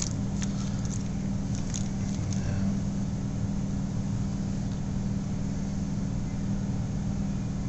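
Steady low background hum, with a few faint clicks.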